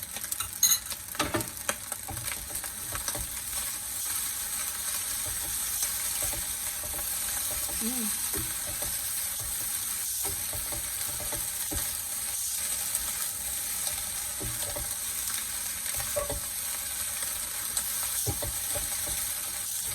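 Corned beef fried rice sizzling steadily in the pan, with a few sharp clicks in the first couple of seconds.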